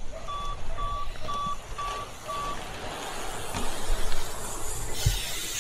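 BMX bikes racing on a paved track, a steady rush of tyre and track noise. A short electronic beep sounds five times, about two a second, in the first half, and a loud hiss comes in near the end.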